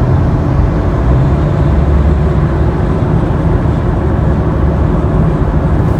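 Steady low rumble inside a 2018 Subaru Impreza's cabin at highway speed. The road and drivetrain noise carries a grinding, whirring growl that the owner takes for a bad wheel bearing.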